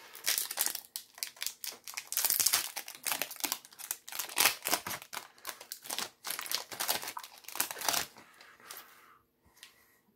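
Magic: The Gathering booster pack's foil wrapper being crinkled and torn open: a dense run of crackling rustles that stops about eight seconds in.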